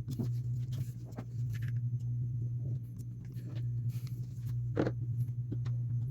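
Small clicks and taps of two-part epoxy being mixed and handled on a workbench, with one sharper knock about five seconds in, over a steady low hum.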